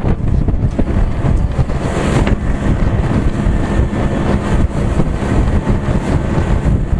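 Tiller-steered outboard motor driving a small open fishing boat at speed, with a steady engine drone under loud rushing of water and spray as the hull pounds through choppy waves, and wind on the microphone.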